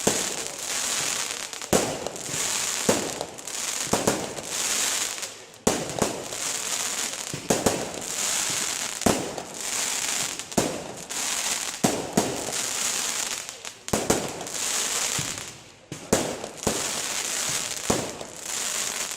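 Aerial fireworks display: shells bursting with sharp bangs every second or two, about a dozen in all, with continuous crackling and hissing between them.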